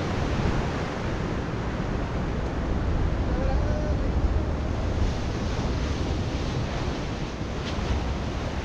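Ocean surf breaking and washing over shoreline rocks, with wind rumbling on the microphone.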